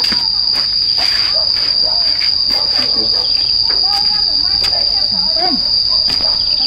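Insects droning outdoors: one steady, high-pitched buzz that never lets up, with faint clicks beneath it.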